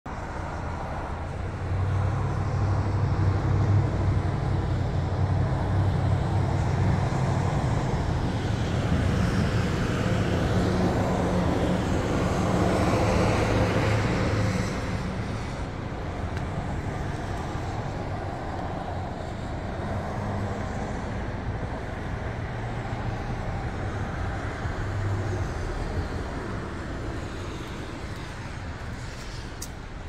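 Outdoor street noise: a motor vehicle engine running steadily with a low hum, over road traffic. It grows louder about two seconds in and eases off about halfway through.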